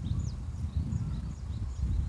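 A steady low rumble on the microphone, with a small bird's short, high call notes repeating faintly above it, a few each second.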